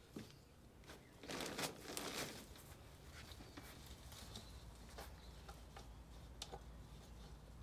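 Dry sphagnum moss rustling and crackling as a handful is pulled from a crate and tucked in around a tree's root ball, loudest about a second in, then small scattered crackles.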